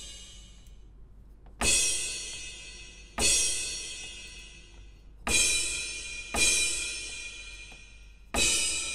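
Aroma TDX-25 electronic drum kit's Crash 2 cymbal edge sample, struck five times about one to two seconds apart, each crash ringing and fading out. Its pitch setting is stepped down between hits.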